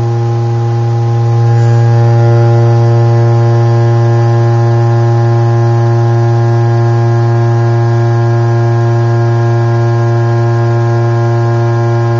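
A steady, low, buzzy tone driving a Kundt's tube, with a long stack of overtones above it. It grows a little louder about a second and a half in. The tone is held near the tube's lowest (n=1) resonance, which shakes the powder into a thick moving wall.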